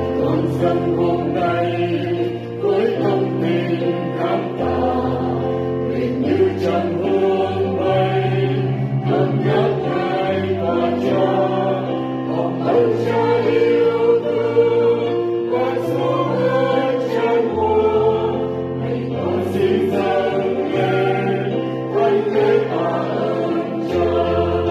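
A mixed choir singing a Vietnamese Catholic Mass hymn in harmony. Steady low accompaniment notes underneath change every few seconds.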